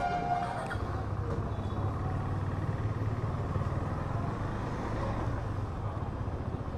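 Motorcycle engine running steadily at low revs as the bike rolls off at a slow pace, with a brief higher tone in the first half-second.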